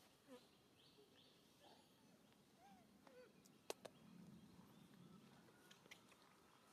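Near silence: faint outdoor ambience with a few soft, short chirps and one sharp click a little past halfway.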